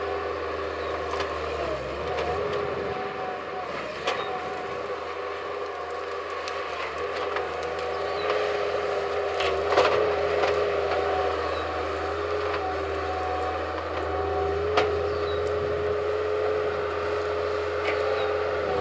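Skid loader engine running steadily, its pitch dipping and rising slightly as it takes load. A few sharp cracks come through, the loudest about ten seconds in.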